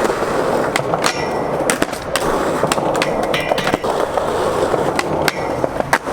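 Skateboard rolling over pavement: a steady rumble of the wheels, with sharp clacks as they cross cracks and joints a few times a second.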